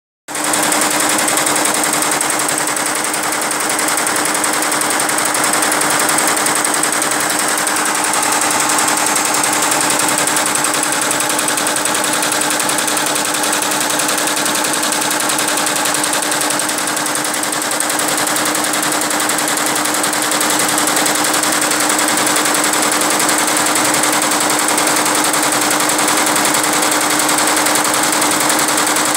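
Multi-needle embroidery machine running steadily as it stitches a red logo into a black shirt, its needle stroking in a fast continuous rattle over a steady hum.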